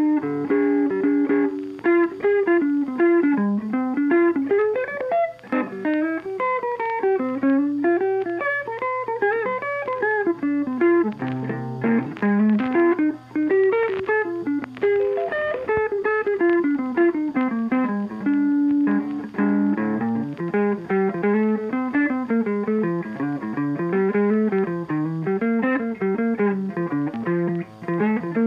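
Instrumental background music: a plucked-string melody of quick stepping notes, playing without a break.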